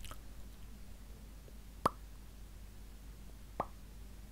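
Two short sharp clicks, one about two seconds in and one near the end, over a faint low hum.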